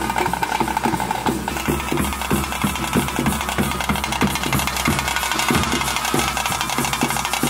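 Traditional bhuta kola ritual drums beating a fast, even rhythm. A held high wind-instrument note sounds over them and fades out after about a second.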